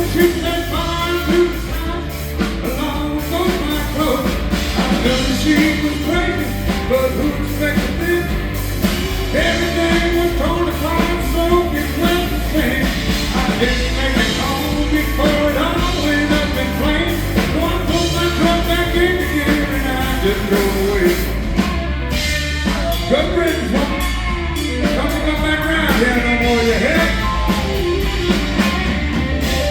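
Live band playing a rock-and-roll style trucker song, with a steady bass and drum beat and a melody line over it.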